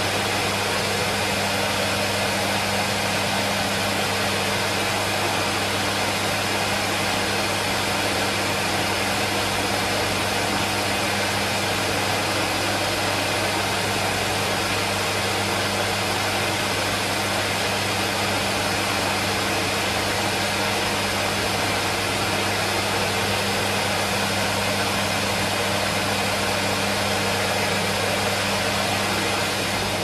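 Numatic Henry vacuum cleaner running steadily: an even rushing whir with a low hum underneath.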